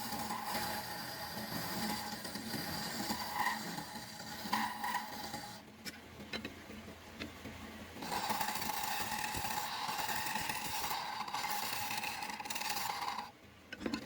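A tool scraping or rubbing against wood, running steadily, pausing for about two seconds near the middle, then resuming and stopping shortly before the end.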